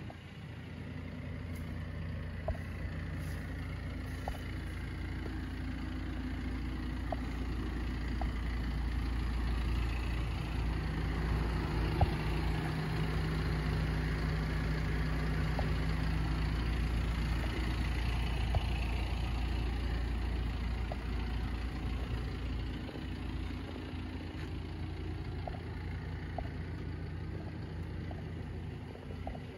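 Audi A4 Allroad engine idling steadily, a low even hum that grows louder through the middle and eases off near the end.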